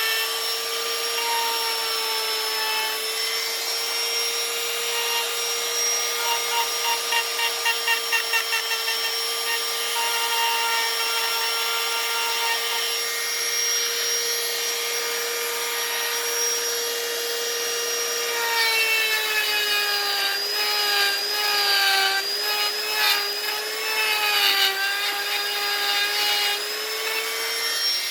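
A high-speed power carving tool whines steadily while cutting wood. Its pitch dips and the level wavers in the second half as the bit bites into the wood under load.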